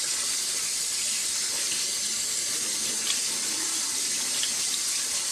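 Cold tap water running steadily into a fine-mesh strainer of long grain white rice, rinsing the surface starch off the grains.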